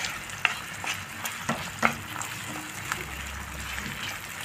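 Fava beans and onion cooking in a nonstick frying pan with a steady sizzle while a wooden spoon stirs them. The spoon knocks and scrapes sharply against the pan several times in the first two seconds.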